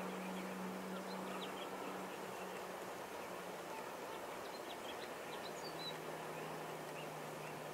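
A distant boat engine gives a low, steady hum that drops slightly in pitch about six seconds in. It sits over an even wash of wind and surf noise, with faint scattered bird chirps.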